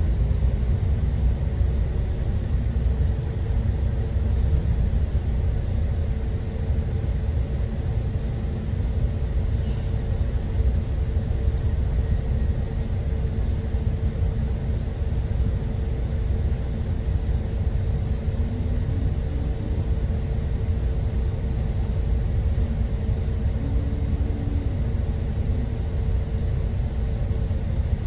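Double-decker bus's engine idling, heard from inside the cabin as a steady low rumble, with a steady hum that stops near the end.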